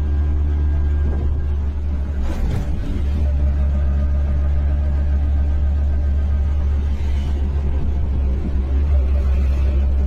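Vehicle engine droning steadily, heard from inside the cabin while driving, with a brief burst of rattling noise about two and a half seconds in.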